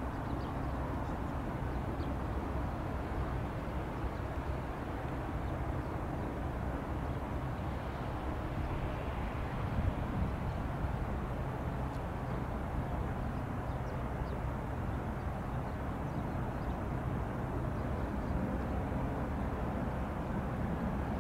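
Boeing 787's jet engines at idle thrust as it taxis, a steady, even rumble with a faint hum.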